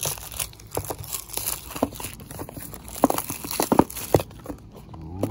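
Plastic shrink-wrap and a small cardboard model-car box being torn open by hand: crinkling and tearing with irregular crackles and clicks, the sharpest a little past the middle.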